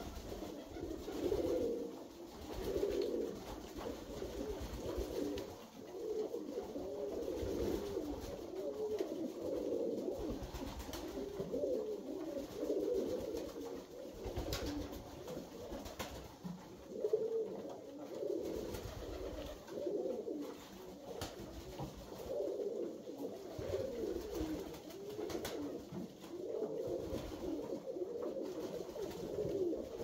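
Flock of Alföldi-Körösi tumbler pigeons cooing continuously, many coos overlapping, with a few sharp clicks.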